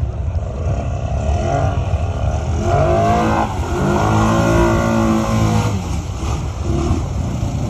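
Snorkeled ATV engine revving hard as its tyres spin and churn through deep muddy water, throwing up spray. The engine pitch climbs and falls a few times, loudest from about a second and a half in until about six seconds.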